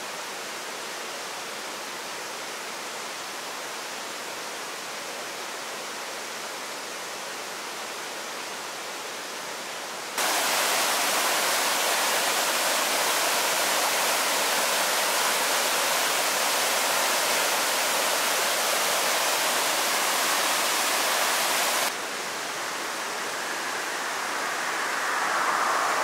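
Steady rush of a mountain stream's flowing water. It becomes much louder about ten seconds in, drops back sharply about twelve seconds later, then swells again near the end.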